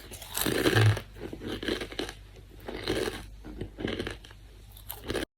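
Someone crunching and chewing Doritos tortilla chips, a run of loud crunches that stops abruptly near the end.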